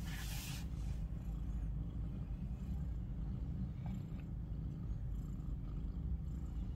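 Mother cat purring steadily while her newborn kittens nurse, a continuous low rumble with a rapid flutter. A short breathy rush right at the start.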